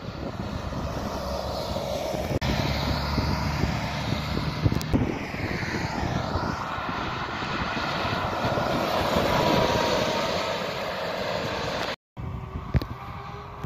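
City buses driving past on an open road: engine and tyre noise swelling as a bus comes near and goes by, with a falling pitch sweep about halfway through. The sound cuts off abruptly near the end and picks up again.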